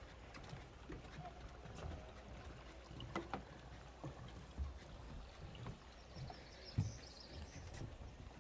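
Footsteps of hikers walking on a trail: irregular soft thuds with a few sharper knocks.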